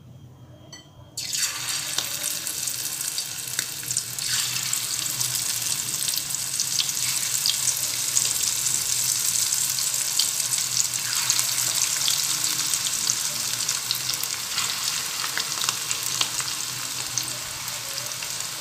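Moong dal pakoda batter deep-frying in hot oil in a kadai: a steady sizzle with crackling that starts suddenly about a second in as the first batter drops into the oil, swelling a couple of times as more handfuls go in.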